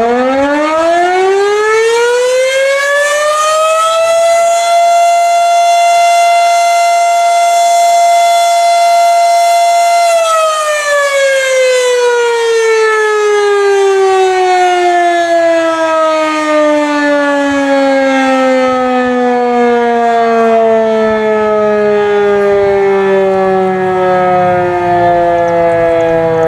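Federal Signal Model 5 mechanical fire siren winding up to full pitch over about four seconds. It holds one steady tone for about six seconds, then slowly winds down and is still falling in pitch at the end.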